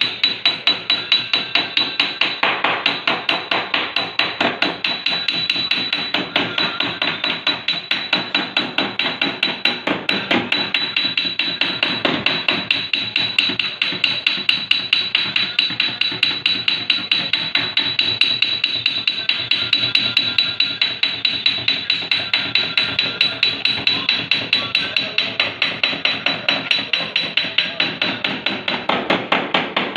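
Hammer tapping steadily on the steel door panel of a Nissan Sunny, about three to four quick blows a second with a high ringing note: cold panel beating to work out a dent.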